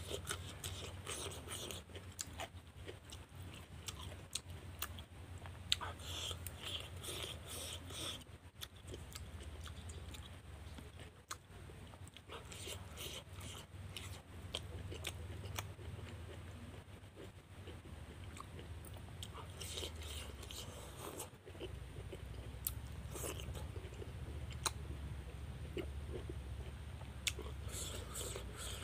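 A person chewing and biting a vegetable meal close to the microphone, with wet, crunchy mouth sounds coming in irregular bursts.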